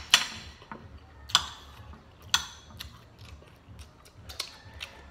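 Close-miked eating sounds: a handful of sharp clicks and smacks at irregular intervals as a fork works the plate and food is chewed, the loudest right at the start.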